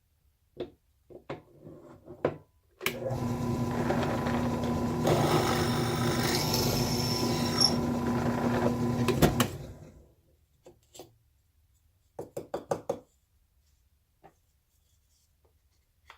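Electric drill running for about seven seconds, boring a 9/32-inch hole into a wooden block. It starts suddenly and spins down near the end. A few short knocks and clicks come before and after it.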